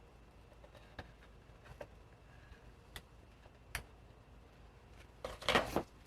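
Light clicks and taps of hard parts being handled, a few single ones spaced roughly a second apart, then a louder quick rattle of several knocks about five seconds in.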